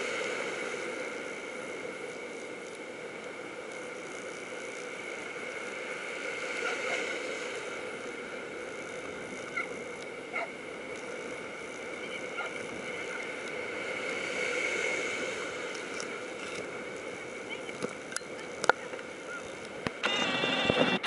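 Surf washing and breaking, swelling and easing, over a steady hum. Near the end come several sharp splashes as the water churns around the dogs and swimmers in the shallows.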